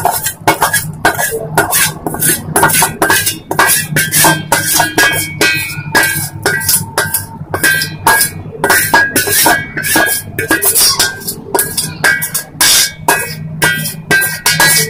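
A metal spatula scraping and clinking against a steel pan, several strokes a second, as the tarka of hot oil and whole spices is scraped out into the daal pot. Steady background music plays underneath.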